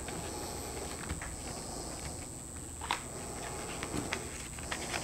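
Construction paper being folded and pressed flat by hand: soft scattered rustles and light taps, one sharper tap about three seconds in.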